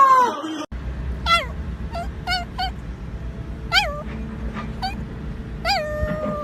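The tail of a cat's long, loud meow trails off in the first half-second. After a cut, a small dog gives about seven short, high whining cries, each rising and falling sharply in pitch, the last one drawn out near the end, over a low steady rumble.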